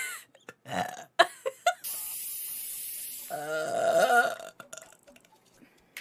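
A steady hiss lasting about a second and a half, then a man's long burp of about a second.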